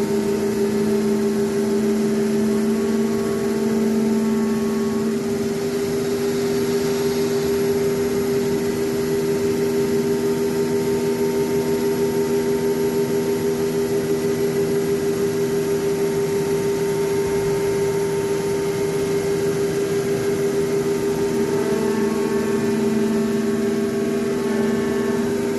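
CNC nesting router running: a steady machine hum with several held tones, a couple of which grow stronger near the start and again near the end.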